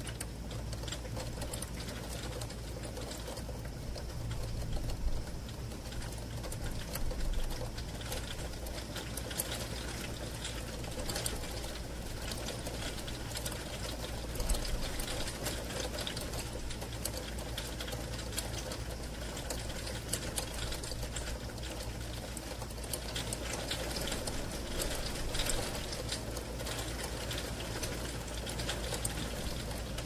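Heavy rain pattering and ticking steadily on a bedroom window pane, heard from inside, with a steady low hum underneath.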